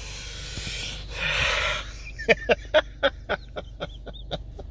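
A man laughing hard: breathy, wheezing exhales, then a quick run of short, sharp laugh bursts, about four a second, that trail off.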